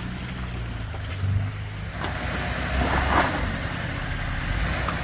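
Off-road vehicle engine running at low revs, with a rushing noise building from about two seconds in and peaking about a second later.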